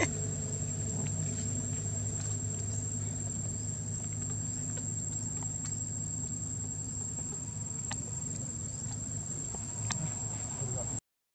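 Insects droning steadily at one high pitch, over a low steady hum and a few faint clicks. Everything cuts out for a moment near the end.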